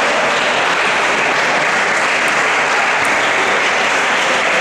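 Steady applause in a large hall, even and unbroken.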